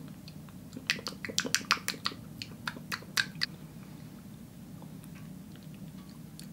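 Wet mouth clicks and lip smacks of someone tasting a spoonful of yogurt: about a dozen quick clicks in the first few seconds, then quiet apart from a low steady room hum.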